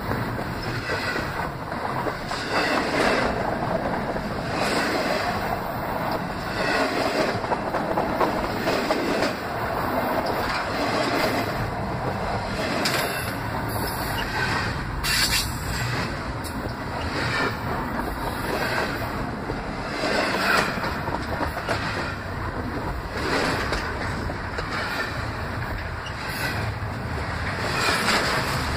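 Canadian Pacific train cars rolling directly over the camera between the rails: a steady rumble and roar of steel wheels on rail, with sharp clacks every second or two as the wheelsets pass overhead.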